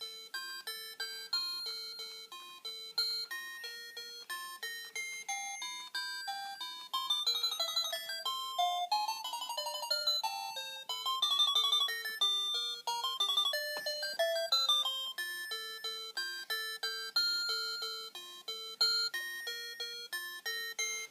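A simple instrumental tune of short, bright plucked or electronic-sounding notes over a repeating lower note, playing steadily throughout.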